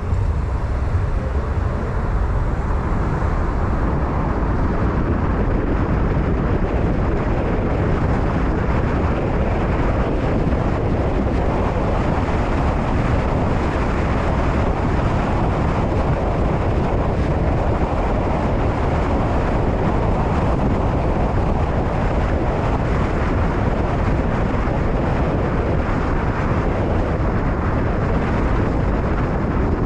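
Steady road and wind noise from a car driving in traffic, an even rumble with no distinct events.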